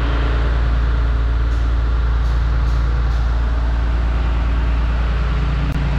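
Engine of a crane running steadily, heard from inside its operator cab, with a short click near the end.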